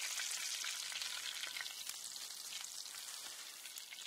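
Hot grease sizzling in a cast iron frying pan, with small pops, slowly dying down.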